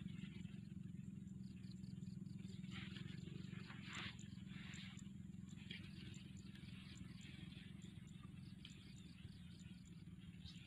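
Faint outdoor ambience by a pond: a steady low rumble with soft, scattered rustles and light high-pitched ticks.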